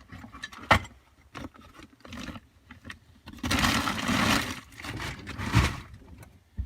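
Rummaging through metal hand tools while searching for a punch: a sharp clink a little under a second in, then a longer scraping rattle of tools being shifted around the middle and another shortly after.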